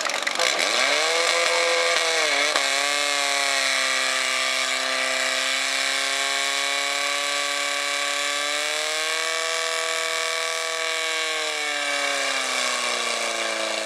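Portable fire pump's engine running at high revs while it pumps water through the hoses. It revs up about a second in, dips briefly, holds steady, climbs again in the second half and falls back near the end.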